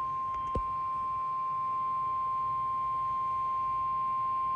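NOAA Weather Radio's 1050 Hz warning alarm tone: one steady, unbroken high tone, the alert signal sounded before an emergency message. A brief low thump comes about half a second in.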